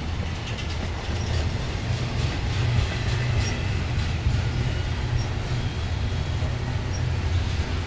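Double-stack intermodal train's loaded well cars rattling by close at hand: a steady low rumble of wheels on rail, with faint short squeaks of the wheels every second and a half or so.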